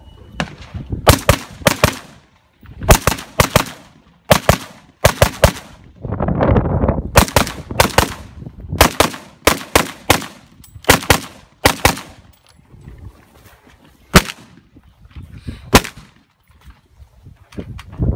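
Rifle fire: strings of quick shots in pairs and threes, then two slower single shots near the end.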